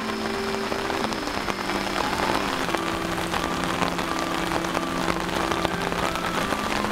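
Steady rain falling, a dense hiss with many separate drop hits ticking through it, and a soft melody faintly underneath.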